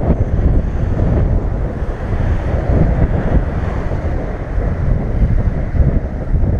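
Wind buffeting the microphone, heavy and gusty, over the wash of waves breaking on a rocky shore.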